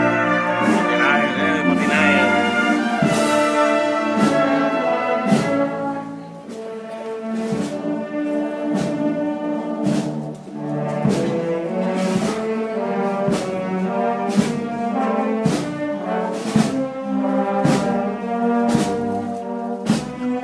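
Brass band music at a slow, steady pace: held brass chords with trombones and trumpets, marked by a percussion stroke about once a second.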